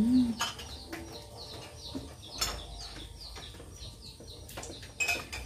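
Young chicks peeping: short falling chirps, about three or four a second. There is a brief low hum of a voice right at the start, and a few light knocks from the table.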